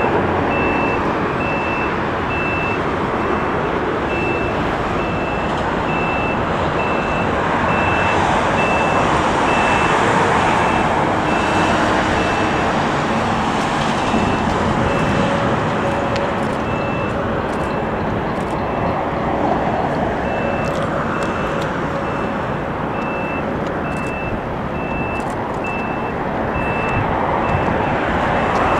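Steady roar of airliner jet engines on the airfield, swelling around ten seconds in and again near the end. Over it a vehicle's reversing alarm beeps about twice a second, with a few gaps.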